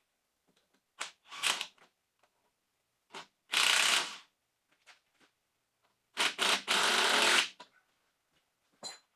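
Air tool run in short bursts: three main bursts of under a second to just over a second each, then a brief one with a thin high whine near the end.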